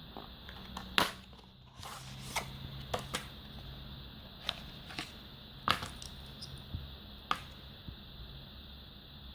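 Handling noises from unboxing a folding knife: scattered sharp clicks and taps, about eight in all at irregular intervals, the loudest about a second in and near the middle, over a faint steady hiss.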